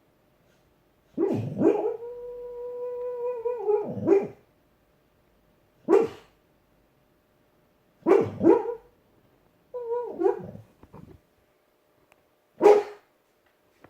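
Loud, odd snoring: short sharp snorts every couple of seconds, and about a second in a long whistling tone held for about two seconds before breaking off in another snort.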